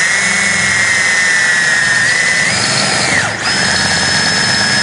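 Power drill whining steadily as an 11/32-inch bit bores through a van's thin sheet-metal body panel. The motor's pitch wavers and it eases off for a moment about three seconds in, then runs steadily again.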